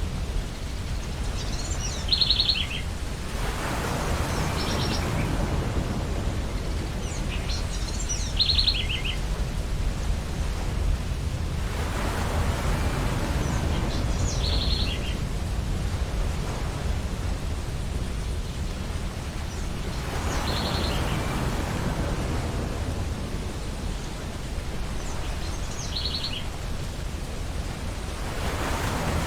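Ocean surf washing onto a beach, the wash swelling and fading about every eight seconds over a steady low rumble. A bird gives a short chirping call five times, about every six seconds.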